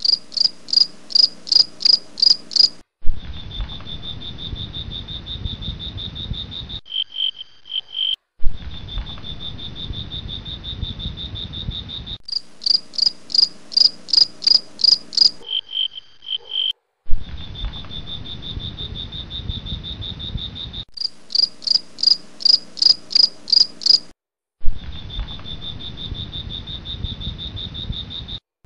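Crickets chirping. Stretches of evenly spaced high chirps, about three a second, alternate with stretches of a steady high trill over a low rumble. The sound switches abruptly between them, with brief silences in between.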